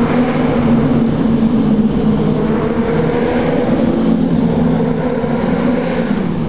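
Suzuki Bandit 1250's inline-four engine running at steady cruising revs inside a road tunnel, with wind rush over it. The engine note eases off slightly near the end.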